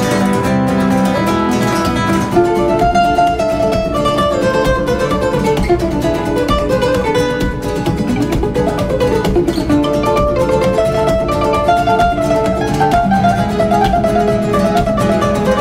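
Background music: a plucked acoustic guitar playing a flamenco-style tune.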